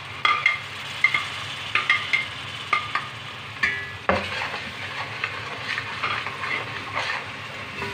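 Mashed tomatoes sizzling as they fry in hot oil in a metal pot, with a steel spoon stirring them and clinking against the pot every second or so.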